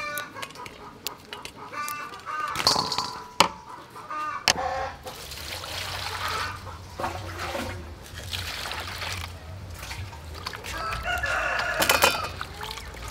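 Chickens clucking and a rooster crowing in the first few seconds and again near the end. From about four seconds in, water is poured from a plastic dipper into a metal bowl and vegetables are swished in it by hand.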